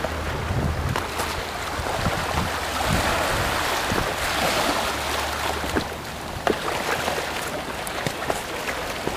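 Small sea waves washing over a stony shoreline, with scattered clicks of footsteps on pebbles and a low wind rumble on the microphone.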